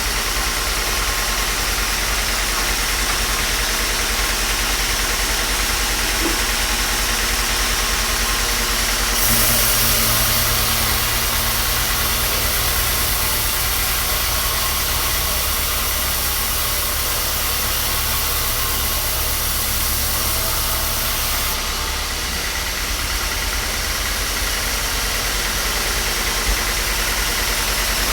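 Workshop machinery running steadily. About nine seconds in, a second machine sound with a higher hiss and a low hum joins it, then stops suddenly about twelve seconds later.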